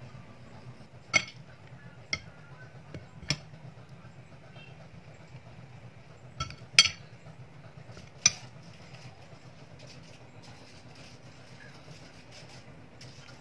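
Spoons clinking against ceramic and glass dishes, about six sharp clinks over the first eight seconds or so, over a steady low hum.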